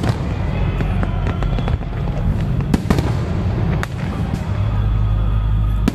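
Aerial fireworks bursting: a run of sharp bangs and crackles, a few standing out loud, over a continuous low rumble.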